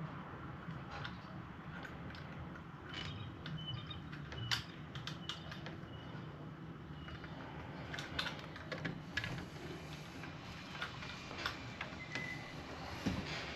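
Scattered small clicks and light taps from handling deadbolt lock parts, over a steady low hum.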